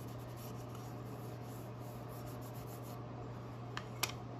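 Damp baby wipe rubbed quickly back and forth over a laser-cut wooden ornament, spreading gel stain in a soft, even rubbing that stops about three seconds in. Two light knocks follow near the end.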